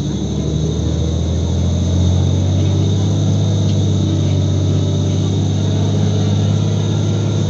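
Cummins L10G natural-gas inline-six engine of a 1998 Neoplan AN440 transit bus running hard under load, heard from inside the bus. It makes a loud, low roar that builds over the first couple of seconds and then holds steady.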